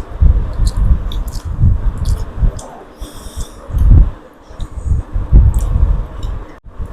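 Close-miked eating sounds: chewing and lip smacking on fish and rice, with irregular low thumps and short wet clicks.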